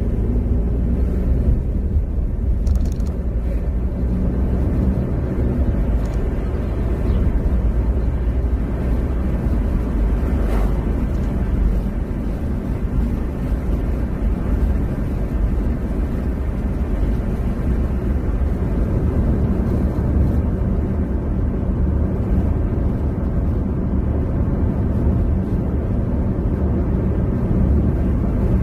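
Steady low rumble of a car driving on an open road, heard from inside the cabin: engine and tyre noise at a constant cruising speed.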